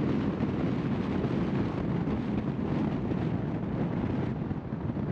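A van driving, with a steady rush of road and wind noise.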